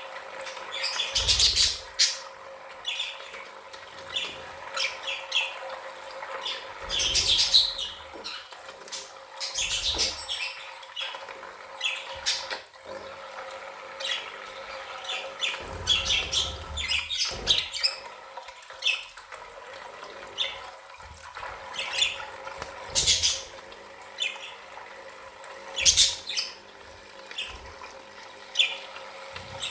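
A group of budgerigars chattering and squawking constantly, with several short bursts of splashing water as they bathe in a pool.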